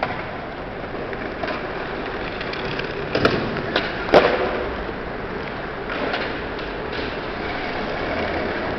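Steady outdoor background noise with two sharp knocks, about three and four seconds in, the second the louder.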